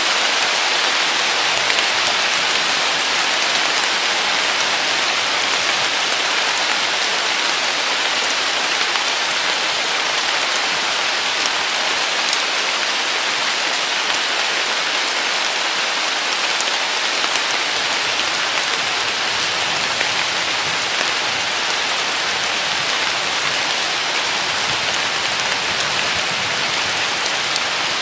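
Heavy summer rain pouring down steadily: a dense, even hiss with the odd sharper drop.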